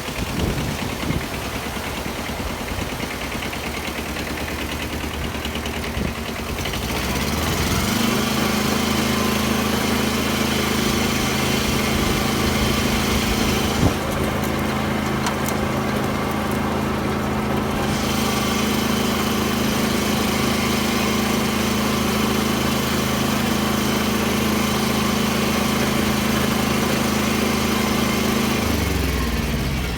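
Small farm tractor's engine running while tilling with a rotary tiller. About seven seconds in the engine speeds up to a steady higher pitch, holds there, and slows down again just before the end.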